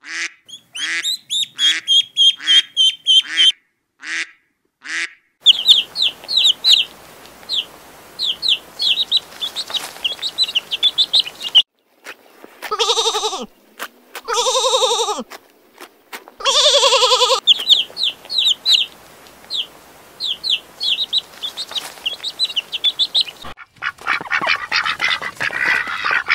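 Mallard ducklings peeping in quick runs of high calls. About halfway through, a sheep bleats three times in long calls, then the peeping returns.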